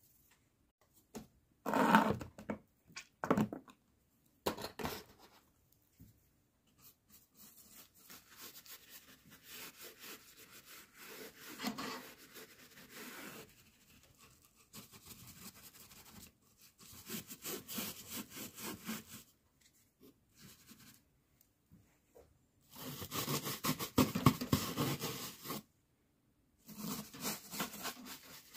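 Hand work on model scenery material: irregular scraping and rubbing, in bursts of a second or more. The loudest passes come about two seconds in and again a few seconds before the end, with softer continuous scraping between them.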